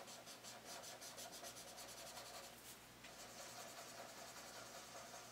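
Faint rubbing of a paper blending stump over graphite shading on sketchbook paper. It starts as rapid, evenly spaced scratchy strokes and turns to a steadier rubbing about three seconds in.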